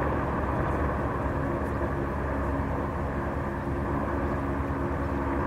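Airbus Helicopters AS350B3 Ecureuil hovering low just above the pad before touchdown: its turboshaft engine and main rotor give a steady noise at constant pitch.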